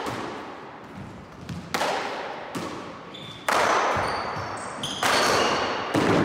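End-screen sound effects: a series of sudden hits, each fading away over about a second, with short high ringing notes between the later hits.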